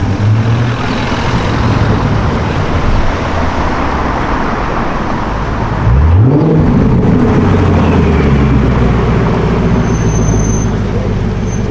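Car engine running in traffic, revving up once about six seconds in with a quick rising note, then running steadily and louder.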